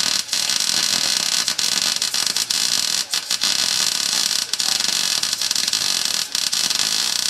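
Wire-feed welder arc welding a bead on a steel axle tube, running continuously with a few very brief breaks in the arc.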